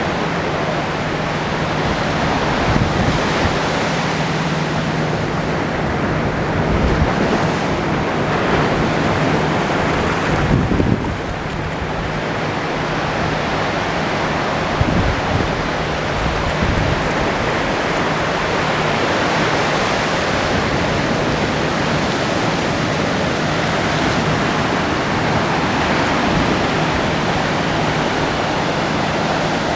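Ocean surf breaking on a beach: a continuous wash of waves rising and falling in slow surges, with wind rumbling on the microphone.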